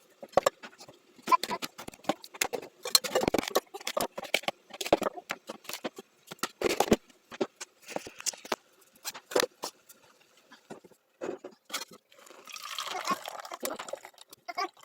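Irregular clinks, knocks and rattles of kitchen things being handled, with a short hissing rush near the end.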